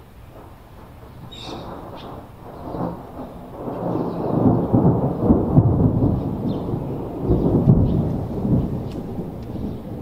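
Rolling thunder: a low rumble that builds from about two seconds in, swells to its loudest through the middle with two strong peaks, and eases off near the end.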